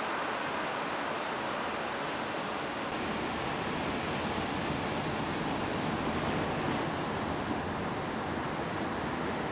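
Steady ocean surf: breaking waves and whitewater making an even, unbroken hiss.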